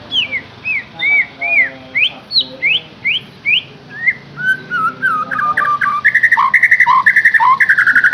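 A songbird singing in clear whistled notes: about ten separate short rising and falling slurs, then from about five seconds a faster, louder run of rapid trilled notes.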